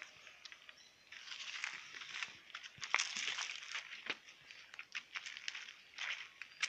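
Footsteps and the irregular rustle and crackle of leaves and dry corn stalks brushing past while someone walks through a garden, with scattered sharp crunches.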